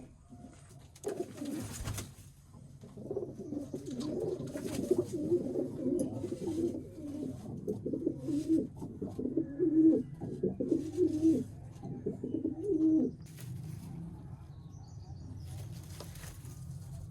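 Domestic pigeons cooing: a long run of low, warbling coos that breaks off briefly near the start and stops about two-thirds of the way through.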